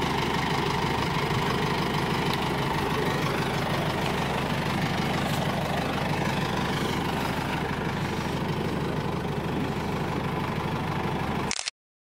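An open-top UAZ-469 jeep's engine idling steadily. The sound cuts out abruptly for a moment near the end.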